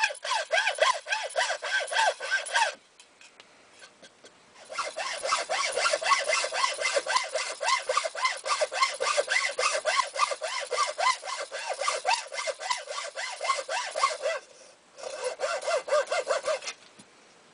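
Hacksaw cutting through a block of wood with quick back-and-forth strokes, about three a second. The strokes come in three runs: a pause of about two seconds comes some three seconds in, a brief pause near the end, and the sawing stops just before the end.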